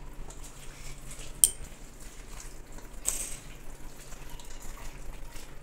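Bare hand squishing and turning raw chicken pieces through wet spice paste in a steel bowl, marinating the meat, with one sharp click about one and a half seconds in.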